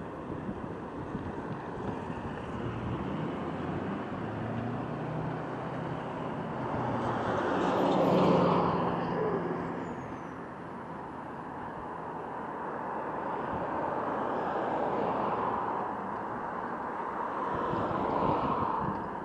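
Road traffic passing by: one vehicle with a low engine note comes up, is loudest about eight seconds in and fades, and lighter passes follow near the end.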